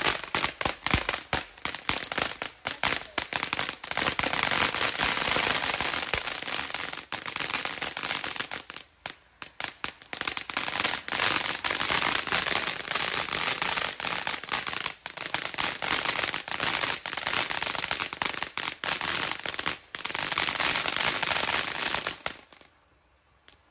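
Consumer fireworks crackling and popping in a rapid, dense stream of sharp cracks, with brief lulls, then stopping abruptly near the end.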